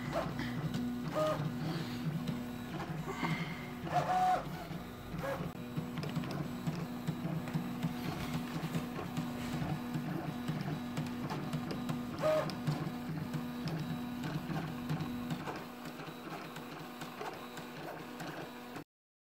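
FDM 3D printer running a print, its stepper motors humming steadily, with short higher-pitched tones as the print head changes moves. The sound drops slightly near the end, then cuts off suddenly.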